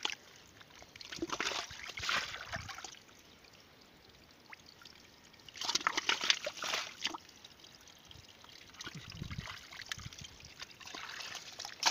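Shallow muddy pond water trickling and splashing, with two louder bouts of splashing, one about a second in and one around six seconds in.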